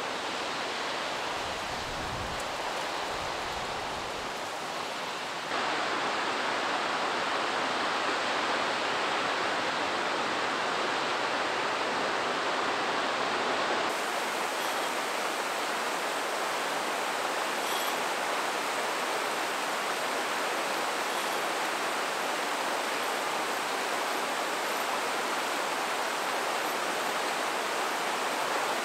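Rushing water of a river or rapids, a steady hiss that jumps louder about five seconds in and shifts again about halfway through.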